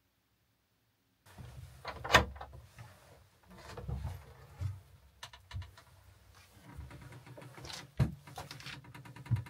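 Wooden plank door being opened: a sharp latch click about two seconds in, then the door moving, footsteps and clothing rustle, and another knock near the end.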